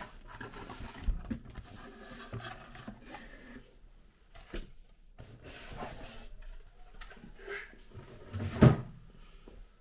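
Packaging being handled during an unboxing: rubbing and sliding with scattered light knocks, and one louder knock near the end.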